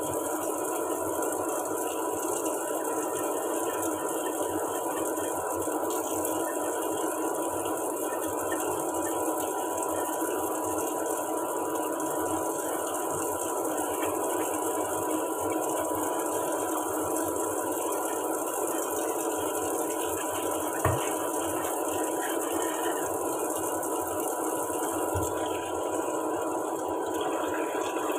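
Kitchen tap running steadily into a sink while a stainless steel pot is rinsed under it, with a thin steady tone underneath. A single sharp knock about 21 seconds in, as of the pot against the sink.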